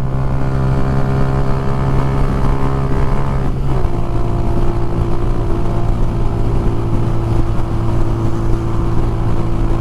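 Motorcycle engine running steadily at cruising speed while riding, with strong wind buffeting. The engine note shifts about three and a half seconds in, then holds steady again.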